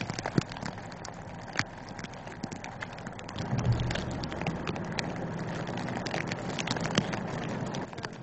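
Sleet or ice pellets ticking irregularly on surfaces over a steady hiss. About three and a half seconds in, a vehicle's low engine and tyre rumble comes up and holds.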